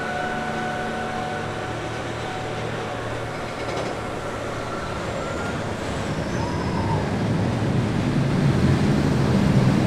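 A steady mechanical rumble. A thin whine fades out in the first two seconds, and a deeper rumble builds and grows louder over the last few seconds.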